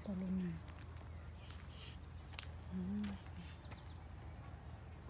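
Faint insects chirping in short high trills about once a second over a steady low hum, with two brief low murmurs from a voice, one right at the start and one about three seconds in.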